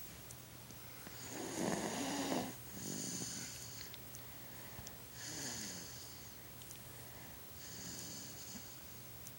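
Snoring: slow, rasping sleep breaths coming every two to three seconds, the loudest about a second and a half in.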